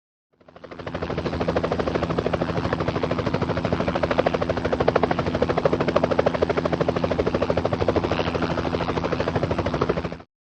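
Helicopter flying: the rapid, steady chop of its rotor blades over a low steady engine tone. It fades in quickly and cuts off abruptly near the end.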